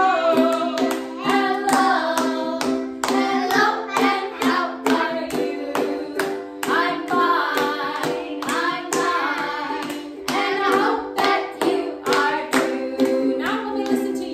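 A woman and a group of children singing together to a strummed ukulele, with hand clapping keeping a steady beat.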